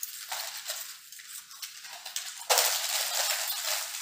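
Small plastic Lay's potato chip packets crinkling as they are handled, with light crackles at first and then, about two and a half seconds in, a sudden louder stretch of dense rustling as a packet is pulled open.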